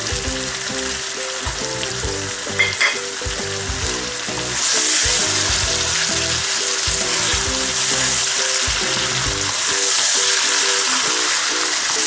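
Mutton, tomato and onion sizzling in a hot wok while yogurt is stirred in with a wooden spoon; the sizzle gets louder about four and a half seconds in. Two short knocks come just before three seconds in, and soft background music plays underneath.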